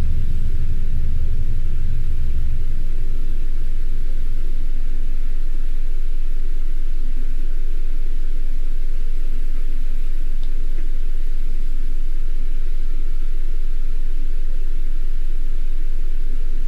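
Steady low rumble, heaviest for the first three seconds or so and then thinner.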